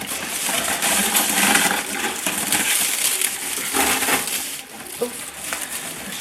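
Packaging crinkling and rustling steadily as items are handled and lifted out of a box, with small knocks mixed in.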